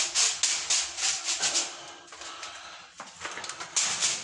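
Rustling and scraping as an electric fly-swatter racket is swept along a door and its frame, in uneven bursts, louder in the first two seconds and again near the end. One faint click about three seconds in.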